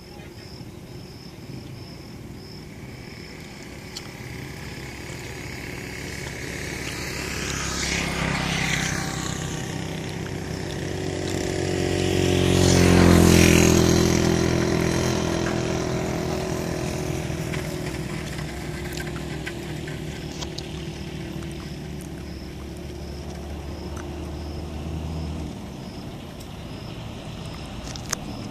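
A motor vehicle's engine approaches and passes, growing louder to a peak about halfway through and then fading away, with a low steady hum that cuts off near the end.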